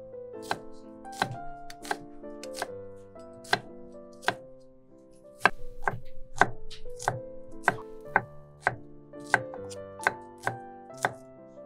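A chef's knife chopping an onion on a wooden cutting board: well over a dozen sharp knocks at an uneven pace, about one or two a second. Background music with sustained tones plays under the knocks.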